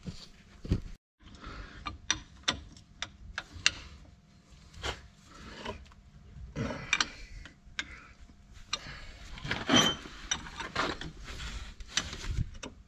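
Hand tools working metal parts of a van's front steering during a tie rod end replacement: irregular clicks, clinks and ratchet-like clicking, with a louder knock about ten seconds in.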